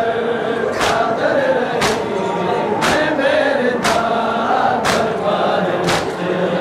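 A noha (Shia lament) chanted by a male reciter and a crowd of men in chorus, with the crowd striking their chests in unison (matam) about once a second as a steady beat.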